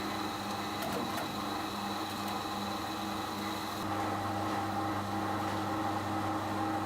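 Steady machine noise: a constant hum with a high whine above it and a few light clicks. The low hum changes and grows slightly louder about four seconds in.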